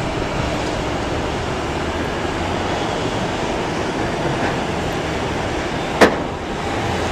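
Boeing 737-800's CFM56 jet engines running at low power with a steady rumble as the airliner rolls out along the runway after landing. A sharp click about six seconds in.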